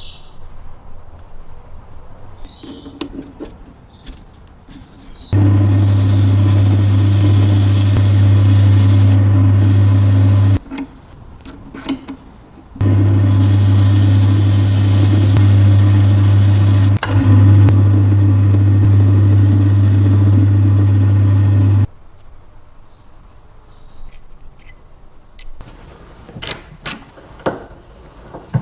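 An electric power tool's motor running at a steady speed, switched on twice for several seconds each time and cut off abruptly, with light clicks and taps of handling between the runs.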